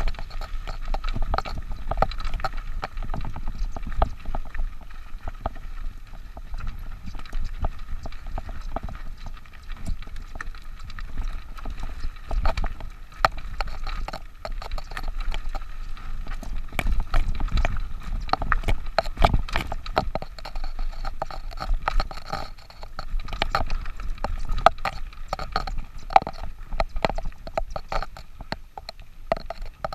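Mountain bike clattering over rough ground, with dense, irregular knocks and clicks over a low rumble.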